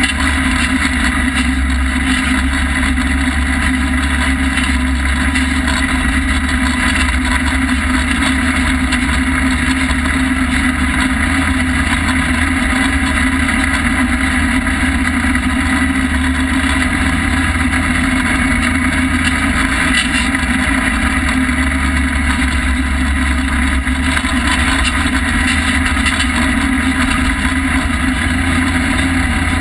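Polaris RZR side-by-side's engine running at a steady pace while the vehicle drives along, heard from inside the open cab.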